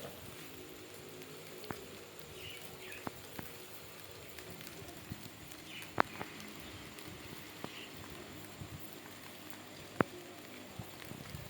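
Swiss albino rats feeding: scattered sharp clicks and taps, the two loudest about six and ten seconds in, over a faint steady hum, with a few faint short chirps.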